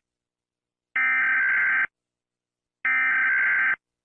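Two Emergency Alert System SAME header bursts: harsh, buzzy digital data tones just under a second each, about two seconds apart.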